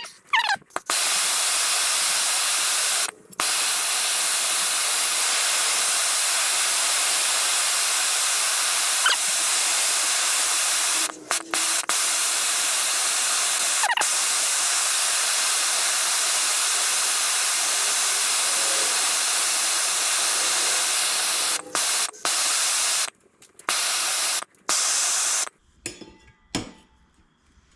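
Handheld gas torch flame hissing steadily while heating an aluminum rim for a low-temperature aluminum brazing rod repair, with a few brief breaks, stopping near the end.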